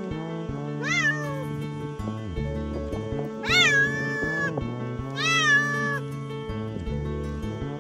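Siamese cat meowing three times, each call rising then falling in pitch; the first is short and the second and third are longer and louder.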